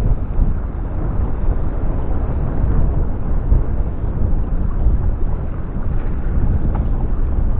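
Strong wind buffeting the microphone: a continuous, loud, low, gusting noise.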